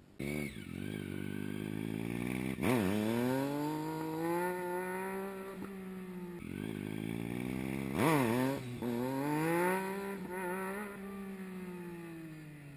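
Triumph Street Triple 675's inline three-cylinder engine revving up and down in two surges during wheelie practice. Each surge starts with a sharp drop and climb in pitch, then holds high before falling. The engine sound fades near the end.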